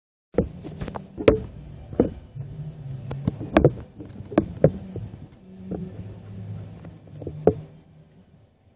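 Irregular knocks and bumps, about a dozen, over a low steady hum: handling noise from the recording device being set up.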